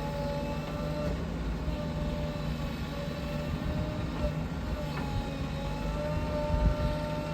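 Heavy diesel engine of earthmoving machinery running steadily at a constant speed, with a single light metallic clank about five seconds in.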